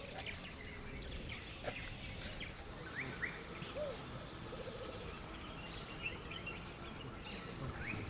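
Faint wild savanna ambience: a steady high tone and a few short, scattered bird chirps, with a brief trill near the middle.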